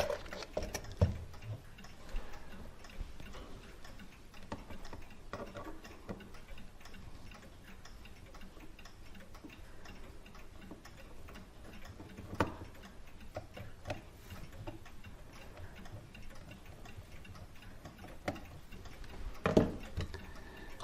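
Faint, steady ticking of a clock, with a few louder small metallic clicks from tools and parts being handled on a clock movement, about a second in, around five and twelve seconds in, and near the end.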